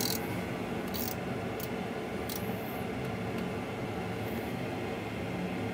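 Boeing 737NG full flight simulator's cockpit sound: steady engine and airflow noise of the aircraft in flight, with a few faint steady tones in it. A few brief soft hisses come in the first two and a half seconds.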